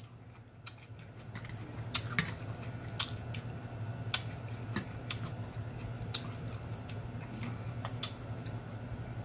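Close-miked chewing with irregular sharp mouth clicks and smacks, about one or two a second, over a steady low hum.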